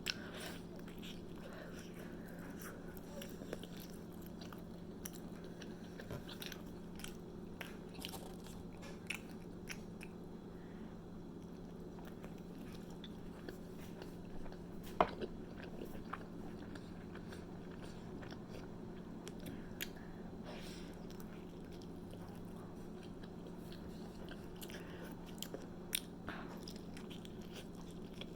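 Close-up chewing and biting of a cheesy hoagie sandwich, with many scattered short mouth clicks and smacks and a sharper bite about halfway through. A steady low hum runs underneath.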